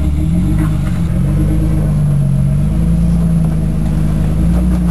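Jeep Wrangler engine running at low speed off-road, its engine note dipping and rising slowly as the throttle changes.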